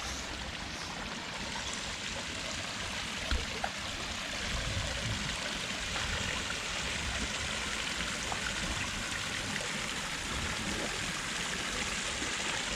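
Running water, a steady rush of splashing with two faint brief ticks about three and a half seconds in.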